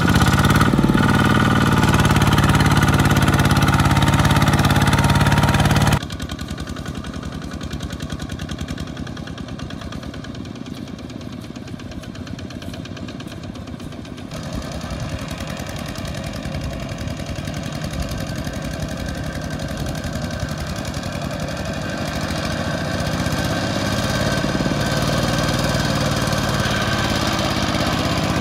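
Single-cylinder diesel engines of two-wheel walking tractors running under load as they haul trailers of rice sacks through deep mud. About six seconds in, the loud close engine cuts off abruptly and a quieter one takes over. That engine grows louder toward the end as the tractor comes closer.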